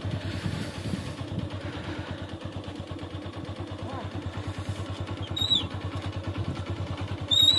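Motorbike engine idling with an even, rapid low putter. A short, high whistling chirp sounds twice, about five and seven seconds in.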